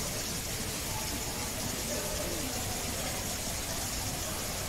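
Steady background noise with a low hum and hiss. Faint, indistinct voices can be heard in it about two seconds in.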